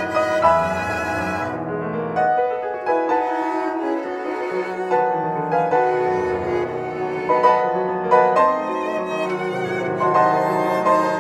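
Violin and piano duet: the violin plays a bowed melody over piano accompaniment.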